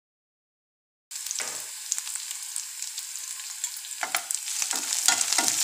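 Sliced onions sizzling in hot oil in a metal pan, cutting in suddenly about a second in. From about four seconds in, a steel spoon stirs them with clicks and scrapes against the pan.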